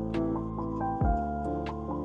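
Soft background music: held chords with a low drum thump about a second in.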